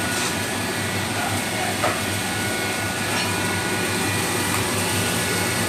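Steady roar of a restaurant wok station: gas burners and kitchen extraction fan running continuously, with a couple of faint light clinks of utensils.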